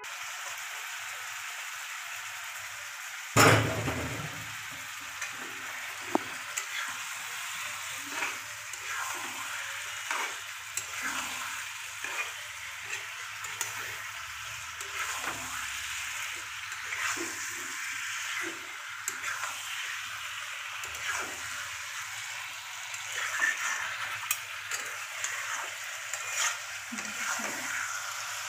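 Meat pieces frying in hot masala in a black wok, sizzling steadily while a metal spatula scrapes and stirs against the pan. A sudden loud sizzle about three seconds in marks the raw meat going into the hot oil.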